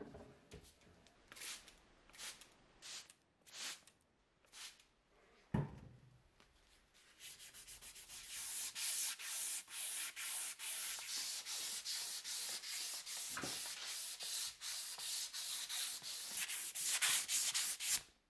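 Hand sanding of a steel hammer head clamped in a vise, with a strip of sandpaper rubbed back and forth over the metal. A few separate strokes and a single knock come first, then fast, even strokes, about three to four a second, that stop abruptly near the end.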